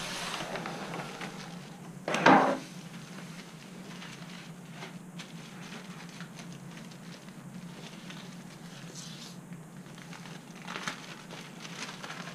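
Plastic packaging handled on a workbench: light rustling and crinkling, with one loud knock about two seconds in as something is set down on the bench.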